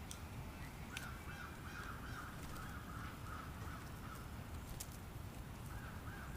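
An animal's call: a quick run of repeated short notes about a second in, lasting a couple of seconds, and a second run starting near the end, over a steady low rumble with a few sharp clicks.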